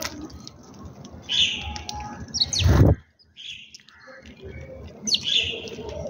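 House sparrows chirping in short bursts as they feed on scattered grain. A brief loud low rush about halfway through cuts off abruptly.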